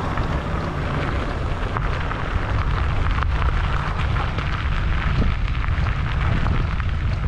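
Wind buffeting the microphone while moving, with tyres crunching and ticking over a gravel road.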